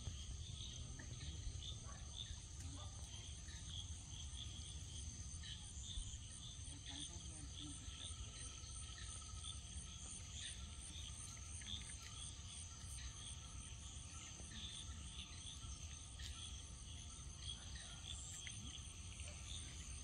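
Steady chorus of insects trilling at a high pitch, with scattered shorter chirps over it and a low rumble underneath.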